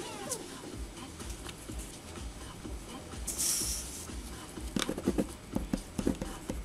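Handling noise from a tactical pen just taken out of water, a brief hiss a few seconds in, then a run of quick, irregular strokes of the pen writing on paper as it is tested to see whether it still works after being submerged.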